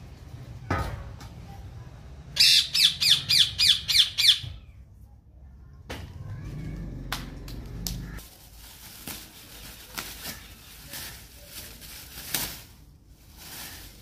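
A parrot squawking: a quick run of about eight harsh calls, each falling in pitch, lasting about two seconds. A single sharp knock comes about a second in, and scattered clicks and rustles follow in the second half.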